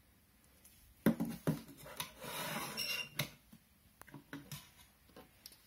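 Plastic LEGO models and pieces knocking and clattering as they are handled and set down on a table: a few sharp knocks about a second in, a rubbing rustle in the middle, then scattered light clicks.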